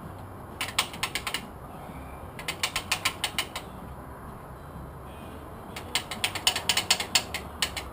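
Ratchet wrench clicking in three quick runs of rapid, even clicks, a fastener being turned in short strokes.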